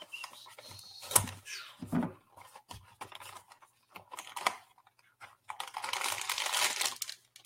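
A cardboard blind box being handled and opened: a few sharp clicks and taps, then from about five and a half seconds a stretch of tearing and crinkling as the packaging inside is ripped open.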